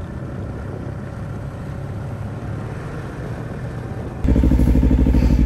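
Snowmobile engine running steadily, heard as a low drone. About four seconds in it becomes much louder and closer, an even, fast-pulsing engine note.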